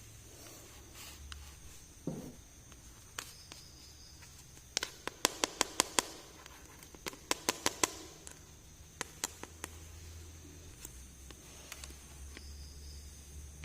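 Small plastic toy pieces being handled, giving sharp clicks and taps. There are two quick runs of clicking, about five or six a second, a little past a third of the way in and just past the middle, with a few scattered taps around them.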